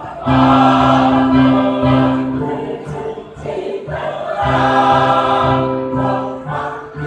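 A choir singing in harmony, holding long chords: one loud sustained chord swells in a moment after the start, fades, and a second loud held chord comes in around the middle.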